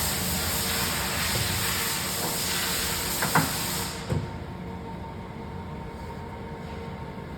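Sharp 1660C engine lathe running under power at a higher spindle speed, a steady machine hum with a strong hiss over it. The hiss cuts off suddenly about four seconds in, leaving the quieter hum of the machine.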